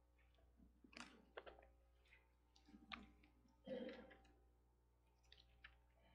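Faint rustling and small clicks of hymnal pages being turned, in a quiet church, as a few separate short sounds spread over several seconds.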